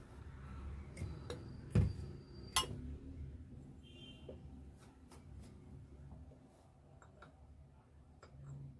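A few sharp metallic knocks and clinks of starter-motor parts and tools being handled, the loudest about two seconds in, then fainter scattered ticks.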